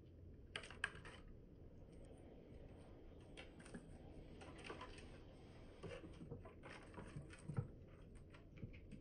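Faint, irregular clicking and tapping over a low steady rumble.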